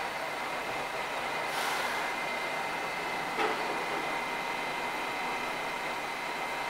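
R188 subway train standing in the station with its doors open, its equipment giving a steady hum with a thin high whine. A brief hiss comes about a second and a half in, and a single click about three and a half seconds in.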